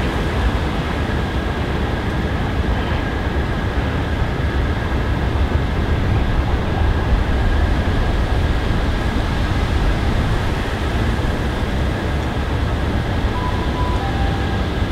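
Steady rumble of trains approaching slowly on the line, heaviest in the low end, with a faint steady high whine and no beat. Near the end comes a brief faint two-note tone, the first note higher than the second.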